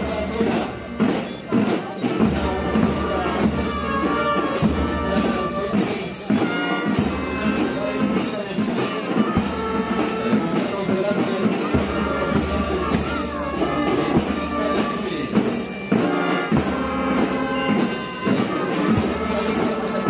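Marching music with a steady beat, played as the marchers step in time.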